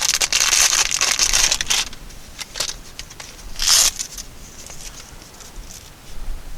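Plastic packaging being handled and opened, crinkling: a dense run of crackling for the first two seconds, then scattered crinkles and one short louder burst a little past the middle.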